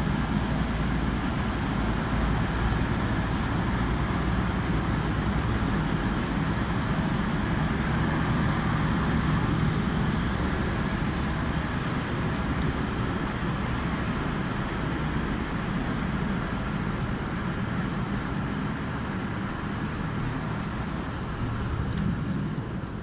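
V/Line diesel passenger train idling at the platform: a steady engine rumble with a low hum. It grows fainter over the second half and drops further near the end.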